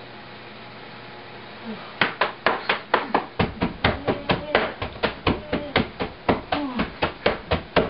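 A fast series of blows, about four a second, struck down onto a person lying in bed, beginning about two seconds in and stopping near the end, with short falling vocal cries between the strikes.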